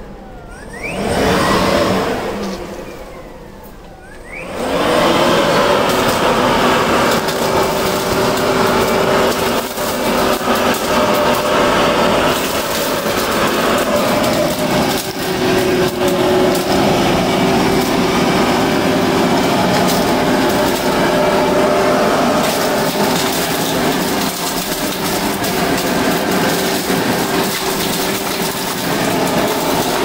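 Makita DUB363 cordless blower-vacuum running in vacuum mode: its fan spins up and winds down briefly, then starts again about four or five seconds in and runs steadily with a high whine. Scattered clicks of leaves and debris are drawn up the tube.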